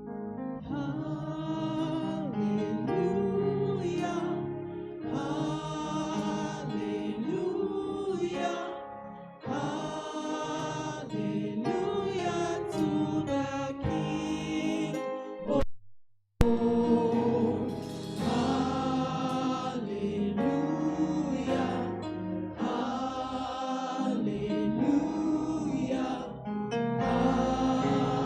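Gospel choir singing a hymn in full voice, phrase after phrase. The sound cuts out completely for under a second about halfway through, then the singing resumes.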